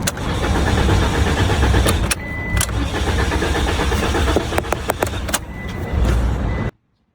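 Car engine being cranked to start, a loud rough mechanical sound with sharp clicks, which cuts off suddenly near the end.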